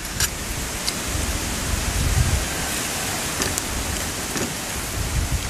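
Wind buffeting the microphone: a steady rushing noise with an uneven low rumble. A few faint light clinks of spoons against dishes sound through it.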